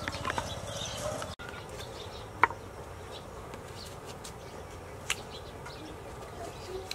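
An insect buzzing steadily over outdoor background rumble, with two sharp clicks, the first about two and a half seconds in and the louder, the second about five seconds in.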